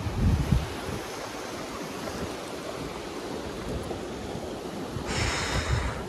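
Wind buffeting the microphone over a steady rushing noise, with heavy low thumps in the first half-second and a brief higher-pitched sound about five seconds in.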